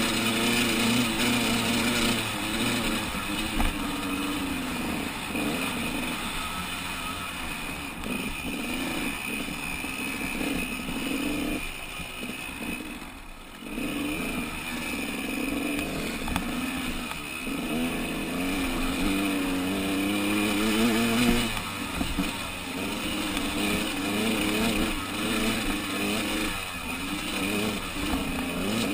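Off-road motorcycle engine heard from on board, revving up and falling back again and again as the rider works through the throttle and gears, easing right off briefly about halfway through. Wind rush on the microphone runs under it.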